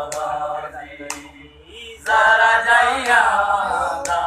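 Men's voices chanting a Punjabi noha, a Shia lament, dipping briefly about a second in and then coming back louder. A few sharp knocks cut through the chanting.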